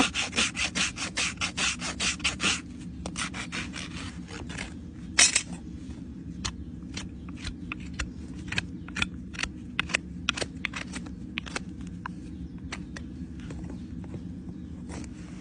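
Hoof rasp filing a horse's hoof with quick back-and-forth strokes, about four a second, stopping about two and a half seconds in. After that come scattered light clicks and taps, with one louder knock about five seconds in, over a steady low hum.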